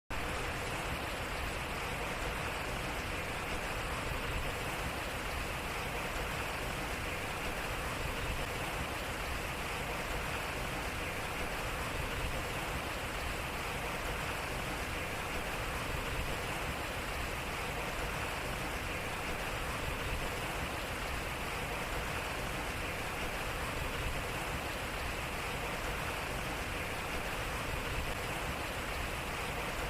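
Water rushing and splashing steadily around a turning water wheel, an even hiss with a low rumble underneath.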